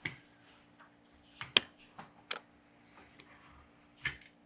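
A utility knife cutting a peel-and-stick vinyl and aluminium tile sheet along a ruler: faint scraping broken by about six sharp ticks, the loudest about a second and a half in.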